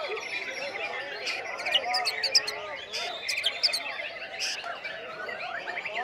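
White-rumped shama (murai batu) singing hard in a fast, varied stream of chirps, trills and sharp high whistles, its song packed with mimicked calls of other birds. Other caged songbirds sing along.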